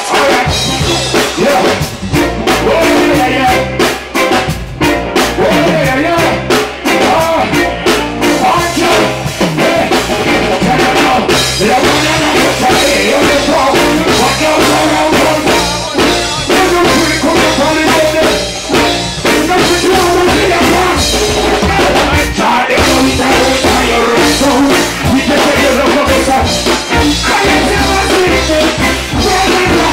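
Loud reggae band music with a singing voice over a drum kit, playing without a break.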